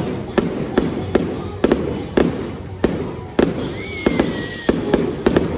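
Fireworks show: aerial shells bursting in quick succession, about a dozen sharp bangs each trailed by a low rumbling echo. About four seconds in, a high whistle sounds for just under a second, dipping slightly in pitch before it cuts off.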